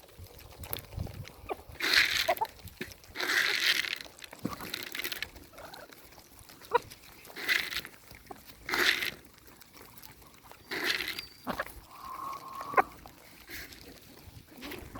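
Farm animals calling in a string of short, harsh cries every second or two, with one brief clear tone near the end.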